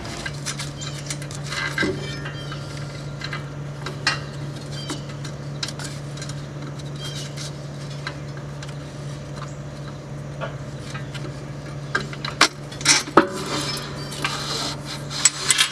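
Metal cable fitting and hardware clinking and scraping against a mower's steel frame as a control cable is fished through a slot. Scattered light clicks, with a cluster of louder knocks near the end, over a steady low hum.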